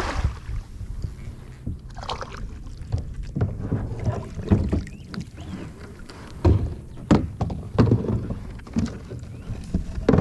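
Irregular knocks and thumps on a fishing kayak, with water movement, as a bass is fought and brought to the boat on a topwater frog.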